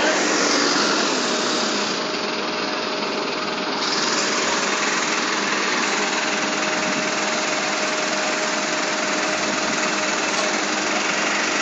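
Fire truck's engine-driven pump running steadily, feeding water to the hose, with a faint steady hum.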